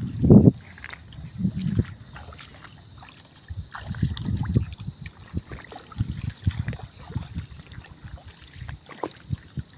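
People wading through shallow water over a muddy tidal flat, with water sloshing around their feet in irregular low rumbling bursts, the loudest in the first half second.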